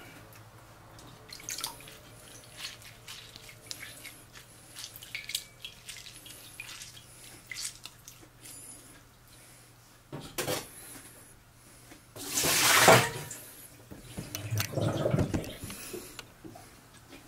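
Water dripping and trickling into a steel bowl of water as blanched spinach is wrung out by hand, in a run of small sharp drips. About twelve seconds in comes a louder rush of water, then a softer one shortly after.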